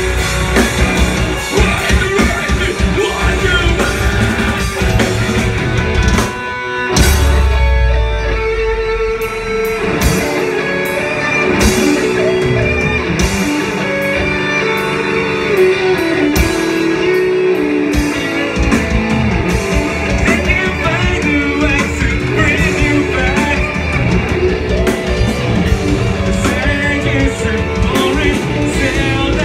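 Live metalcore band playing loud: distorted electric guitars, drum kit and vocals. About six seconds in the band stops briefly, then crashes back in with a heavy low hit.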